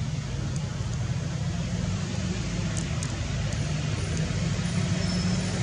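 Motor vehicle engine running steadily: a low, even rumble under a broad hiss.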